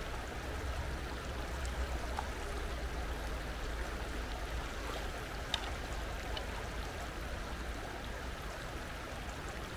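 Steady rush of a flowing stream, with a low rumble underneath and one faint click about five and a half seconds in.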